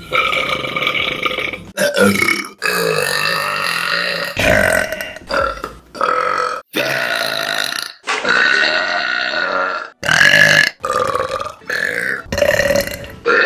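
Women burping: about a dozen separate burps cut one straight after another, some short, a few long and drawn out for nearly two seconds.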